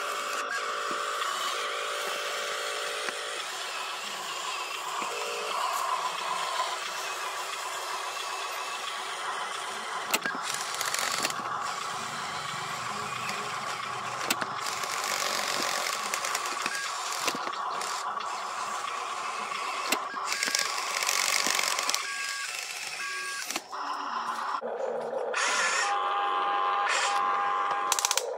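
Small electric motors and gearboxes of RC construction models whining on and off: a Huina RC dump truck driving over dirt and an RC excavator digging, with a few sharp clicks.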